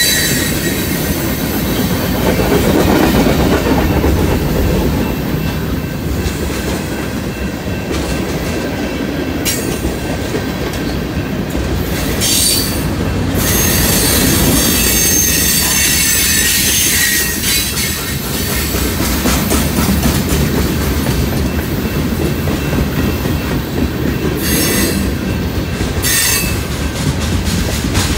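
Freight train cars rolling past at close range: a steady rumble of steel wheels on the rails, with high-pitched wheel squeals breaking in several times.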